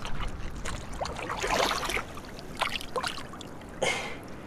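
Small waves washing against a rocky shoreline, with wind rumbling on the microphone and a few short rushes of moving water. Near the end there is a splash as a bluefish is let go in the shallow water.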